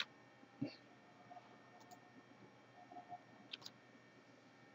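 Near silence: faint room tone with a few soft computer clicks, one about half a second in and a couple around three and a half seconds in.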